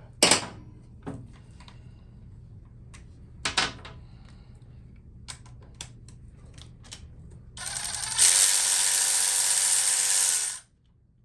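A few sharp metallic clinks of sockets and tools, then a handheld power tool whirs steadily for about three seconds near the end and stops abruptly, spinning out a 1/2-inch fastener on a Harley-Davidson Sportster Evolution engine's top end.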